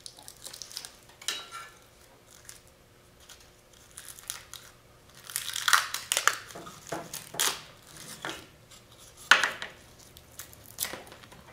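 Plastic film being peeled off a cured carbon fiber layup by hand, crinkling and crackling in irregular bursts; the loudest bursts come about halfway through and again near the end.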